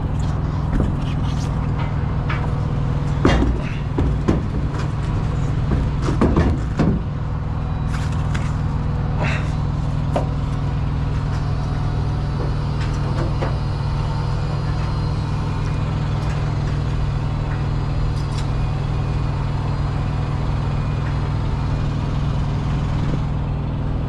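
A heavy engine idling steadily, with a few knocks in the first seven seconds as spare tires are shifted on the trailer's wooden deck.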